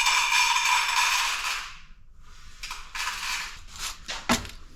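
Loose brass scrap pieces being handled: a scraping rattle for about two seconds, then shorter clatters and one sharp knock near the end.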